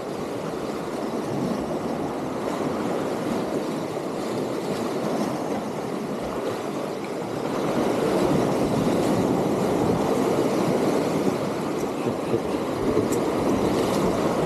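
Sea waves washing and breaking against the concrete tetrapods of a breakwater: a steady rushing surge that grows louder about halfway through as a bigger wave breaks. A few faint clicks near the end.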